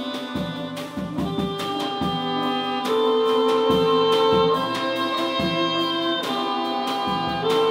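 Live jazz trio of saxophone, bowed cello and drums playing: long held notes over short drum and cymbal strikes.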